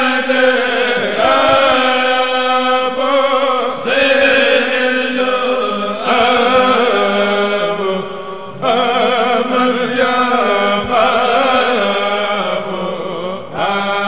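Men's kourel chanting a Mouride khassida in unison through microphones, in long melodic phrases that pause briefly for breath every few seconds, over a steady low held note.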